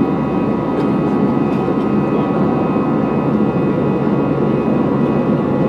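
Airplane engines running steadily during takeoff: a dense, even rumble with a few thin, steady whining tones above it.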